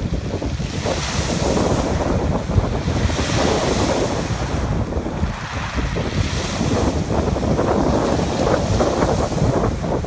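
Sea waves breaking on a shingle beach, the wash hissing over the pebbles in surges every two to three seconds, with wind buffeting the microphone.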